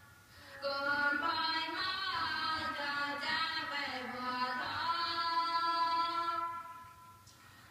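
A high voice singing one melodic phrase of held notes with pitch glides. It comes in about half a second in and dies away about a second before the end.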